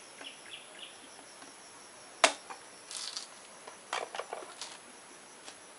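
Bolo knife striking the husk of a young coconut to chop it open: one hard, sharp chop about two seconds in, a brief crackle, then several lighter chops around four seconds in.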